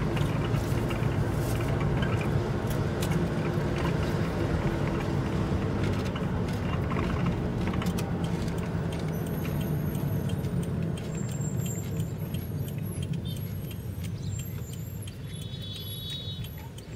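Car cabin noise while driving: steady engine and tyre rumble with scattered light rattles, growing gradually quieter as the car slows in the second half.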